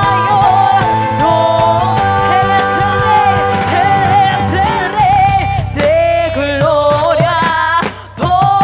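A woman singing a worship song into a microphone, holding long wavering notes over electronic keyboard accompaniment. The music dips briefly near the end.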